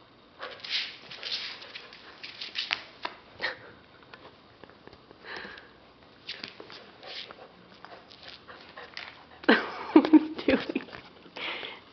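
Alaskan Malamute puppy snuffling and sniffing in short, scattered bursts while it plays. About nine and a half seconds in comes the loudest sound, a short vocal outburst from the puppy that drops sharply in pitch and then wavers.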